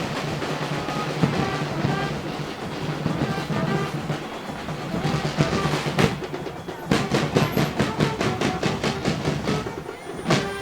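Murga drum section, bass drum, snare and cymbals, playing a driving carnival beat. A hard accent lands about six seconds in, followed by a run of even strokes at about four to five a second.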